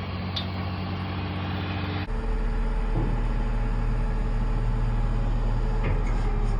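Motor vehicle driving: a steady engine hum with road noise. About two seconds in it cuts to a louder, deeper hum.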